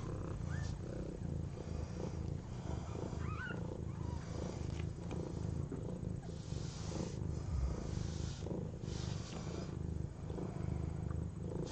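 Mother cat purring steadily during labour, just after delivering a kitten. A couple of faint high rising squeaks come about half a second and three seconds in.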